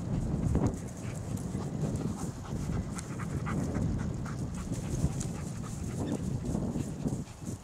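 German shepherd panting as it hunts through dry grass, over a steady low rumble.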